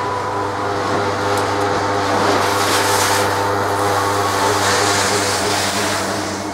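Steady mechanical drone of the indoor ski hall's machinery: a constant low hum with several held tones above it. A hiss swells over the middle few seconds and fades near the end.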